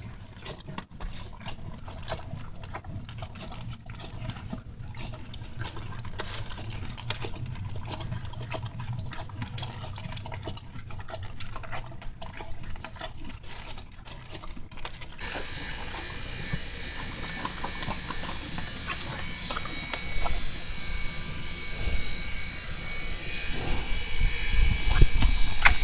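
Horse chewing and crunching feed in dense crackling clicks. About halfway through, a steady high-pitched ringing drone joins, and heavy low thumps come near the end.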